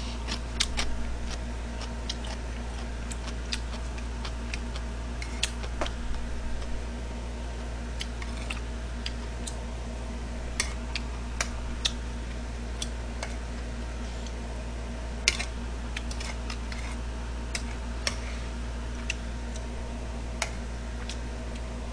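Metal spoon clinking and scraping on a ceramic plate while eating fried rice: scattered light clicks at an irregular pace, over a steady low hum.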